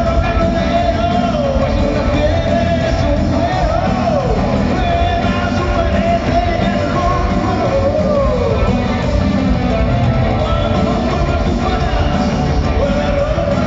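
Live pop-rock band playing through the arena's sound system, heard from the seats, with a lead vocalist singing long held notes that slide up and down.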